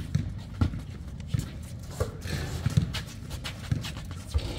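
Irregular thumps of a basketball bouncing and players' footsteps on a hard outdoor court, with a few sharper scuffs and clicks among them.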